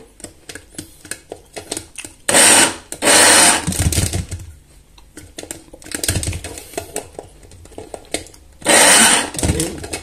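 Small electric grinder pulsed in three short bursts, two close together a little over two seconds in and one near the end, chopping thawed peas into a paste. Quieter knocks and handling sounds come between the bursts.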